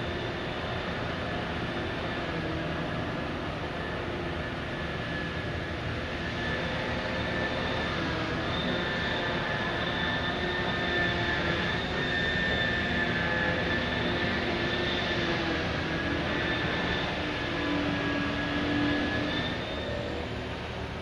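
Liebherr P995 backhoe dredger's machinery running steadily, with a low engine drone and a high steady whine that grows louder about a third of the way in and fades just before the end.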